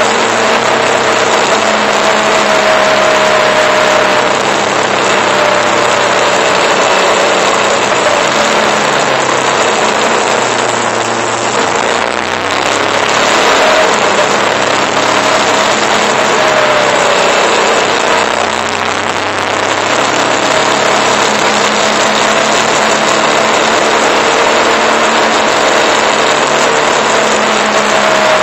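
Motorcycle engine running on the move, with a steady rush of wind and road noise over the microphone and a whine that slides down in pitch now and then; the sound eases briefly about twelve and nineteen seconds in.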